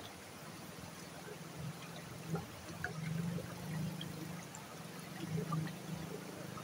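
Shallow creek water trickling among rocks, with small splashes as hands work in the water, over a low wavering hum.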